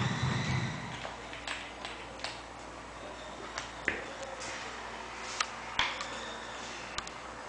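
Scattered light clicks and taps, about seven spread over several seconds, from banana-plug leads and small circuit-component blocks being handled and plugged together on a wooden tabletop.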